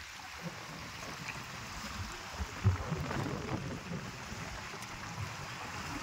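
Small wind-driven waves lapping and splashing against rocks at the edge of a reservoir, with gusty wind rumbling on the microphone.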